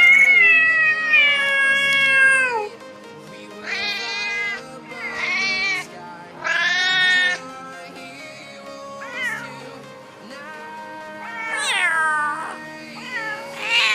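Cats meowing again and again, about six meows. A long, drawn-out one opens, then several shorter ones follow, and the later ones slide down in pitch. Soft background music plays underneath.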